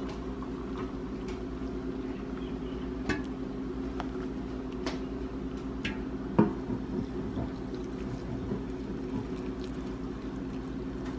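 Water being poured into tea cups of herbs and turmeric, with a few light clinks and knocks of cups and utensils over a steady low hum.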